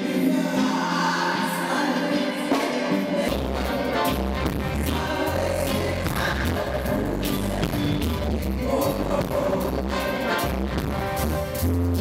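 Reggae band playing with women's backing vocals. A deep bass line comes in about three seconds in and carries on under the music.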